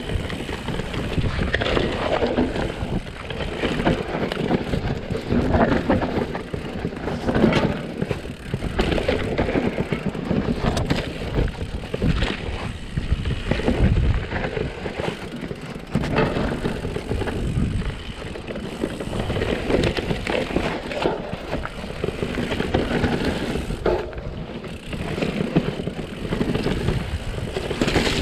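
Mountain bike riding fast down a dirt downhill trail: continuous tyre noise on dirt, with frequent knocks and rattles of the bike over bumps.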